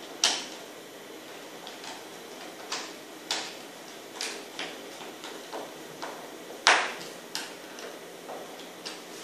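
Scattered light clicks and knocks of metal hardware being hand-tightened: the bolts of an aluminium swivel wall plate being turned into toggle anchors in drywall. The knocks come at uneven intervals, with the loudest about two-thirds of the way in.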